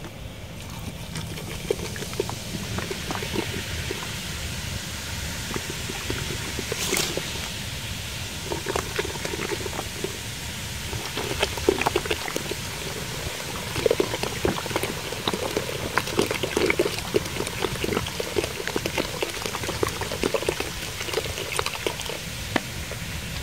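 Carbonated ginger ale poured steadily from a 2-liter plastic bottle into a steel pot of water and cut fruit, splashing in a continuous stream. Irregular small pops run through it and grow busier about halfway.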